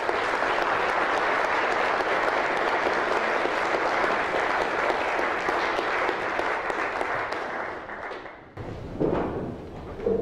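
Audience applauding, dying away about eight seconds in.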